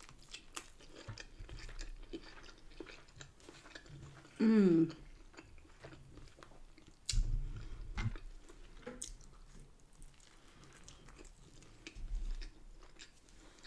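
Close-miked chewing and biting of a bacon, scrambled egg and mushroom bagel: many small wet clicking mouth sounds. About halfway through comes a brief voiced hum that falls in pitch, the loudest sound. Low thuds come a little later and near the end.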